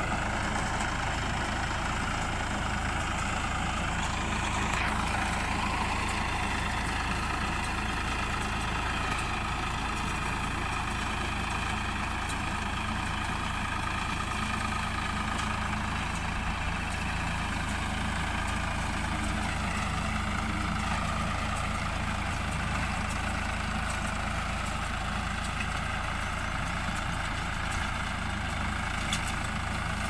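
Sonalika RX 47 tractor's diesel engine running steadily while it drives a Kartar round baler through straw, the baler working behind it.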